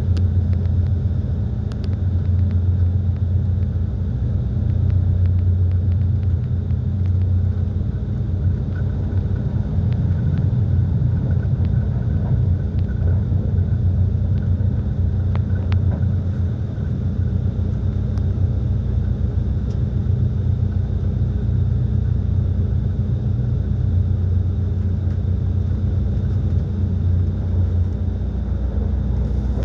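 Passenger train running along the line, heard from inside the carriage: a steady low rumble of wheels on rails, with a few faint clicks scattered through it.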